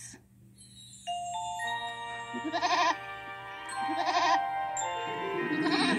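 Gentle recorded music with held notes, and a goat bleating twice over it, about two and a half and four seconds in.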